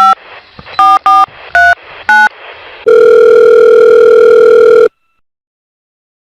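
Telephone keypad tones as a number is dialled, about five short beeps, followed by a two-second ringing tone on the line while the call connects.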